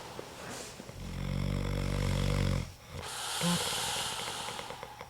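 A man snoring heavily in his sleep: one long, low, rattling snore starting about a second in, followed by a hissing breath out.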